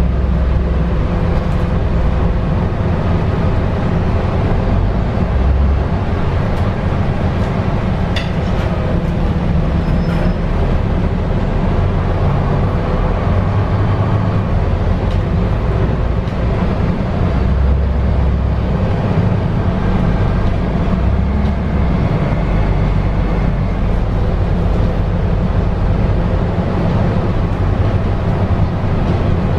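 Interior noise of a MAN Lion's City A22 Euro 6 city bus under way, heard inside the cabin: its diesel engine running steadily at cruising speed with tyre and road rumble, plus a few faint rattles.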